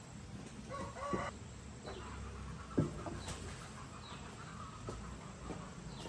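Chickens clucking in short calls, with one brief, louder thump about three seconds in.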